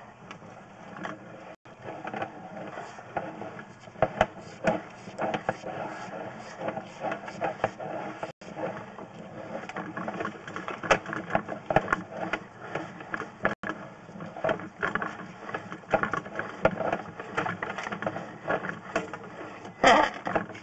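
Sewer inspection camera's push cable being pulled back out of the drain line and onto its reel: an irregular, continuous clatter of clicks and rattles, with a louder burst near the end.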